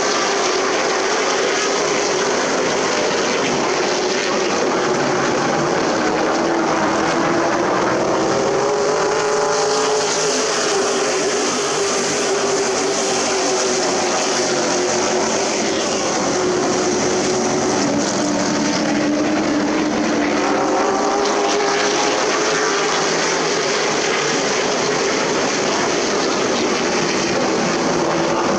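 Super Truck race engines running at speed around an oval track, several engines at once, their pitch rising and falling as the trucks go past.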